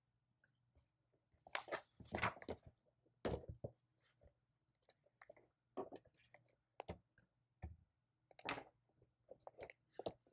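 Computer keyboard being typed on in short, irregular bursts of key clicks, with pauses between them.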